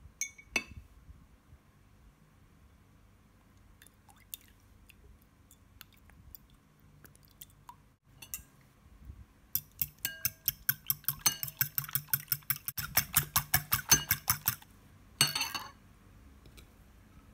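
Metal fork beating raw eggs in a ceramic bowl: a few scattered taps against the bowl, then about five seconds of rapid, even clinking, about six strokes a second, with the liquid egg sloshing. It ends with a short scrape near the end.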